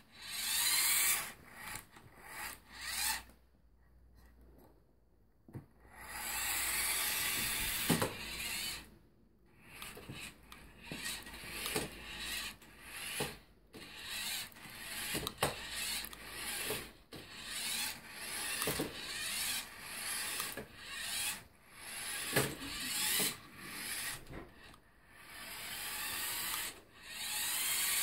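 A toy remote-control car's small electric motor and gears whirring in many short spurts, starting and stopping over and over as it is driven, with a quiet pause a few seconds in.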